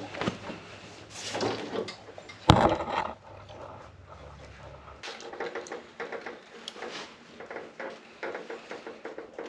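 Clunks and rattles of a walk-behind lawn machine being tipped over by hand to drain its engine oil, with one sharp knock about two and a half seconds in, then lighter clicks and taps.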